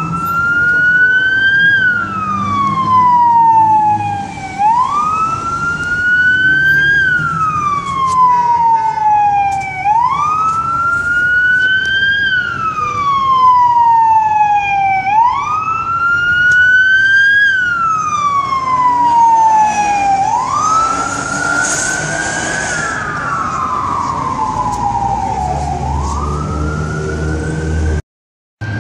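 Emergency vehicle siren on a slow wail, each cycle rising quickly and falling slowly, about once every five seconds. Traffic noise runs underneath, louder for a few seconds around twenty seconds in, and the sound cuts out briefly near the end.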